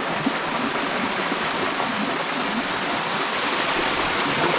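Water of a rocky hill stream rushing and splashing over boulders, a steady even sound.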